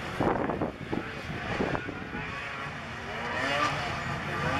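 Several snocross racing snowmobiles with two-stroke engines, revving hard, their pitch wavering up and down. The engines grow louder in the second half as the sleds come closer.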